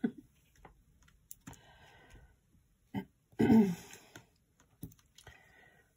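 Light clicks and scratches of a Take Your Pick tool prying and picking at a small cardstock piece, with a short low throaty vocal sound of effort about three and a half seconds in.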